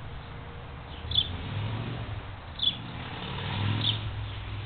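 A bird chirping three times, short high chirps over a second apart, over the low rumble of a passing vehicle that swells about a second in.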